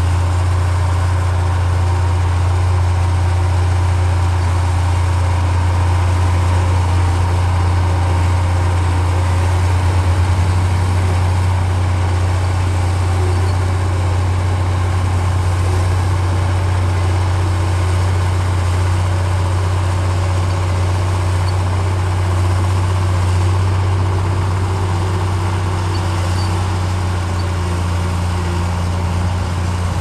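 Komatsu D53P bulldozer's diesel engine running steadily with a deep drone, working under load as its blade pushes soil.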